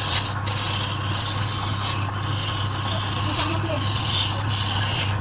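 Wood lathe running with a steady hum while a hand-held turning tool cuts along the surface of a spinning wooden vase, making a continuous hiss of cutting wood.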